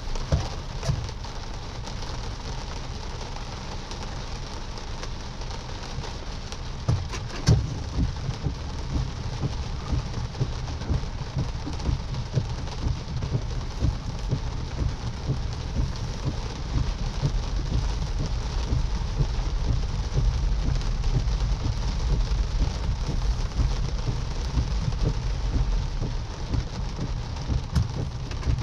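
Moderate rain hitting a car's roof and windshield, heard from inside the cabin as a steady hiss of many small ticks over a low road rumble, with a few louder knocks, the loudest about seven and a half seconds in.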